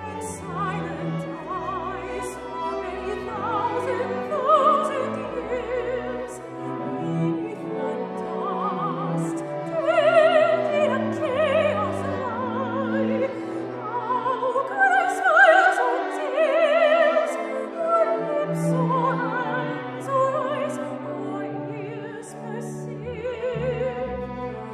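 Classical soprano singing with vibrato over a small string orchestra, the strings holding sustained chords beneath the voice.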